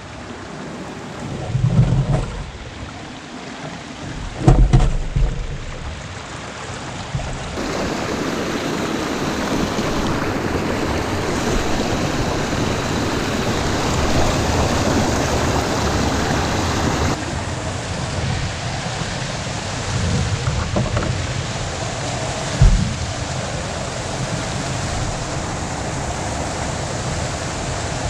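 River water rushing and splashing over a small rocky drop, close up, at its loudest for about ten seconds in the middle. A few dull low thumps come in the first five seconds and once more later.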